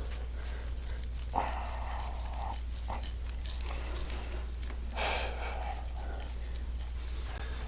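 Two noisy breaths, each about a second long, about a second and a half and five seconds in, with a short click just before the first, over a steady low hum.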